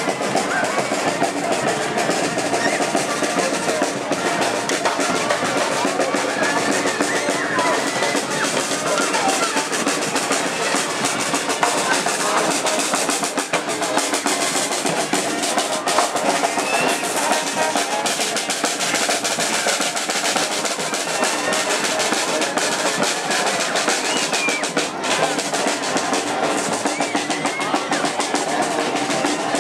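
A marching street band playing in a parade, drums prominent, steady and unbroken throughout.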